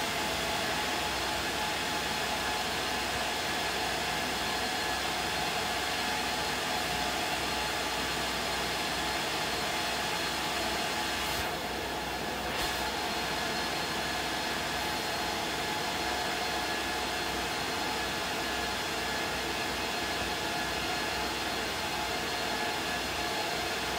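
Steady background hiss and hum with a few faint steady tones, the constant noise floor of the recording; the hiss thins briefly a little before halfway through.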